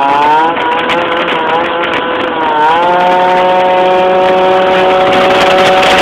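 Yamaha Jog RR two-stroke 50cc scooter engine, fitted with a Hebo Manston kit, running hard under riding load. Its pitch wavers and rises, dips briefly about two and a half seconds in, then holds steady at high revs.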